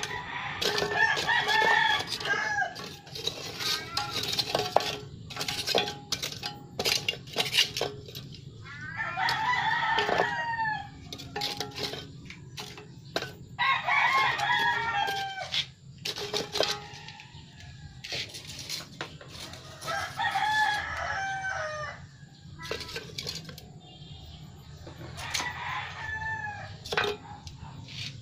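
A rooster crowing several times, each crow lasting a second or two. Between the crows come short sharp clicks and knocks as metal tongs shift lumps of charcoal in a clay charcoal stove.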